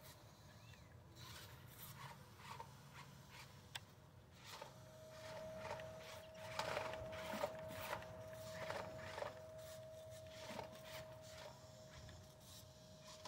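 Faint sound of a small battery-powered RC monster truck driving over dirt: scattered small clicks and scrabbling, with a thin steady whine from about four seconds in.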